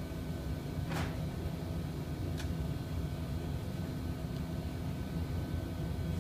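Steady low mechanical hum of running workshop machinery or ventilation, with two brief swishes, one about a second in and another about two and a half seconds in.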